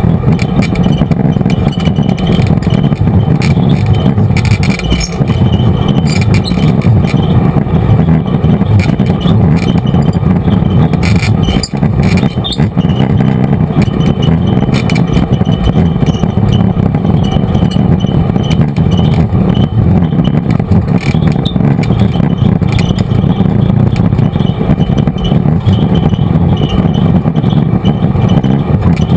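Side-by-side UTV driving along a rough dirt trail: its engine runs steadily under load, with short rattles and knocks from the machine jolting over bumps.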